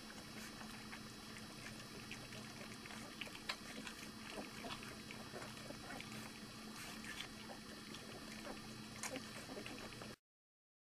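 A litter of Bouvier des Flandres puppies eating scrambled egg together from a plate, a faint run of many small smacking and lapping clicks. The sound cuts off abruptly near the end.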